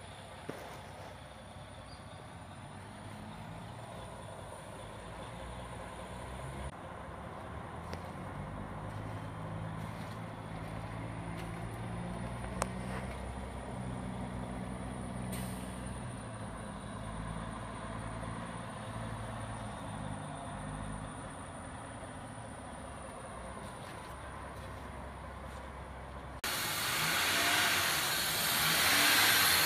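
Vehicle engine running with a low steady hum; near the end a much louder rushing noise sets in suddenly.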